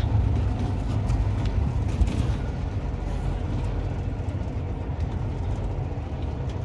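Pontoon boat's outboard motor idling: a steady low rumble.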